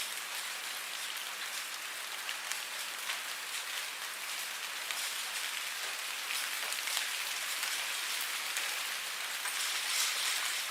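Steady rain falling on a surface, an even hiss with many small drops ticking through it.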